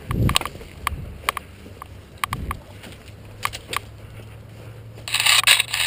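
Scattered sharp clicks of airsoft gunfire during a game, with low thumps from the camera wearer moving, and about five seconds in a loud scraping rustle lasting about a second.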